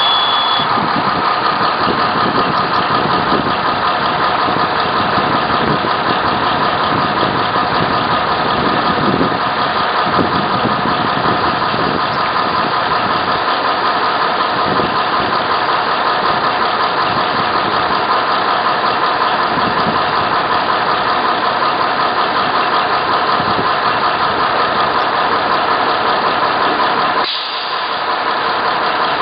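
Steady, loud mechanical hum and whir of a standing electric train's equipment, several even tones over a rushing noise, with a brief dip about 27 seconds in.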